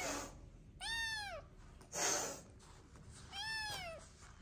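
A young kitten meowing twice, high-pitched calls that rise and fall in pitch, about a second in and again a little past three seconds, with the end of an earlier meow at the very start. A short breathy rushing noise about two seconds in.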